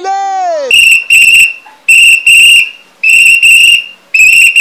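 A man's held, sung note into a microphone, breaking off under a second in, then a shrill whistle blown in loud double blasts, four pairs about a second apart.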